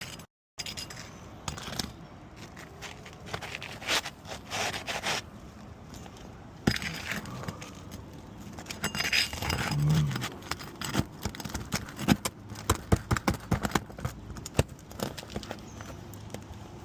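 Scraping, crackling and repeated sharp clicks of an old, brittle 3-tab asphalt shingle being pried and worked loose. A hidden nail is still holding the shingle. The clicks come thickest in a quick run near the end.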